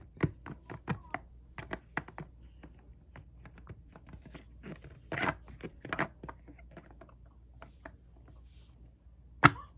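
Small silicone pop-it fidget toys being pressed bubble by bubble with the fingertips: a run of soft pops and clicks at an uneven pace, a few a second, with one sharper click near the end.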